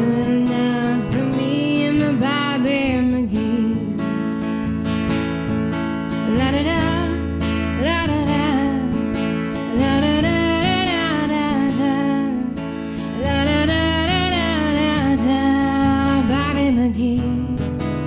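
Music: strummed acoustic guitar with a wavering melody line over it in phrases of a few seconds.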